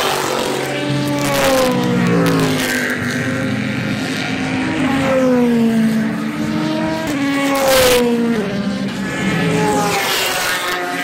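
Several race car engines passing at speed one after another, their notes overlapping and gliding down in pitch as each goes by, with the loudest pass about eight seconds in.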